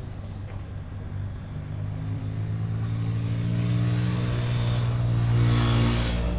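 A motor vehicle's engine, a steady hum that grows louder over several seconds and swells with a rush of noise about five seconds in, then falls to a lower pitch near the end, like a vehicle passing close by on the road.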